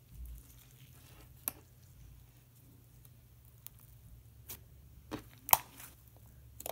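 Hands squishing and pressing thick slime, making scattered sharp pops and clicks, the loudest a little over five seconds in, over a low steady hum.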